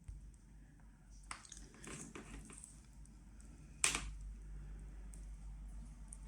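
Quiet handling of an Ethernet cable and its crimped RJ45 plug: a cluster of small plastic clicks and rustles, then one sharp click just before four seconds in.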